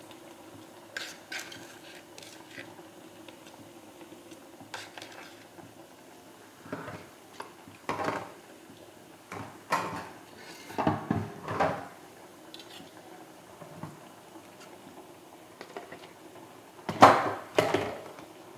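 A spoon and small dishes clinking and knocking on a tiled kitchen counter in scattered clatters, loudest near the end, over a faint steady hum.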